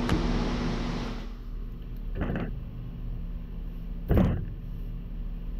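Heavy cut AC compressor stator pieces being handled: a knock about two seconds in and a louder metal clank about four seconds in, over a steady machine hum. A rushing noise cuts off a little over a second in.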